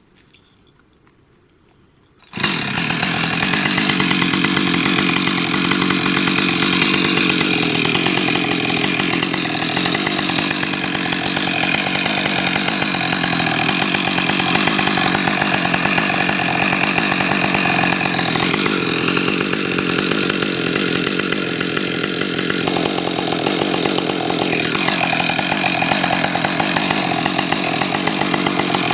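Chainsaw running at a high, steady pitch that starts abruptly about two seconds in and dips in pitch a few times.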